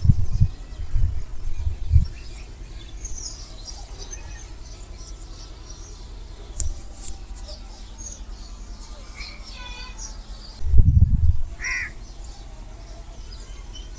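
Birds calling outdoors: scattered high chirps and a few harsh caw-like calls, one just before ten seconds in and a short one near the end. Low rumbling thumps at the start and again about eleven seconds in are the loudest sounds.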